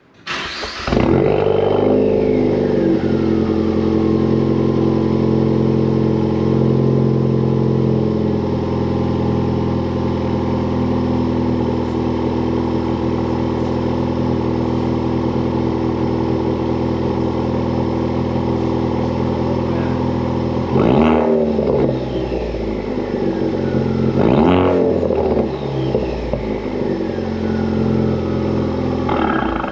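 2015 Ford Focus ST's turbocharged 2.0-litre four-cylinder, heard through a new Hooker Blackheart 3-inch stainless catback exhaust, starting up less than a second in, flaring and settling to a steady idle. It is then revved twice, about 21 and 24 seconds in, each rev rising and dropping back to idle.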